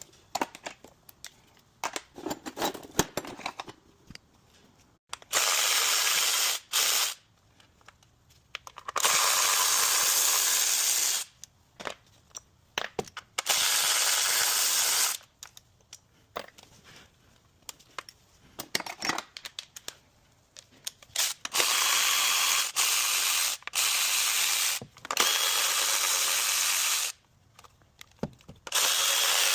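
Repeated bursts of hissing pressurised air, each lasting one to two seconds and cutting off sharply, with hand-tool clicks and clatter between the bursts.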